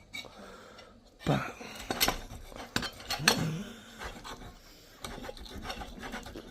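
Knife cutting open a venison burger patty, scraping with a few sharp clicks of cutlery on a dish.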